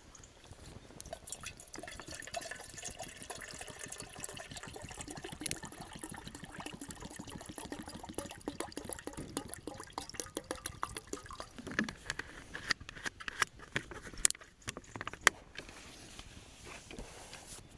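Water poured into a container, running for about ten seconds. It is followed by a few sharp knocks and clicks.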